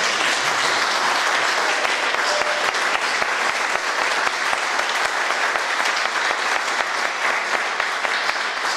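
Audience applause: many people clapping together at a steady level.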